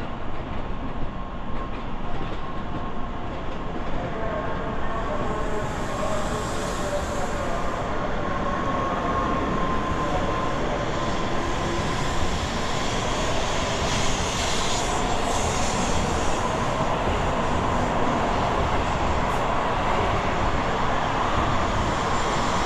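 N700-series Tokaido Shinkansen train passing through a station at high speed without stopping: a loud, steady rush of air and wheels on rail, with a thin high whine in the first half.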